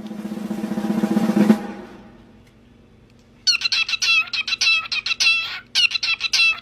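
A snare drum roll swells and stops about one and a half seconds in. About two seconds later comes a bird's quick, high chirping, in two rapid runs of repeated notes.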